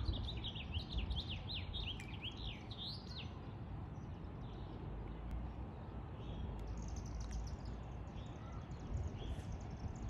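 A songbird singing a quick series of rising and falling chirps for about the first three seconds, then fainter, higher chirps later on, over a steady low rumble.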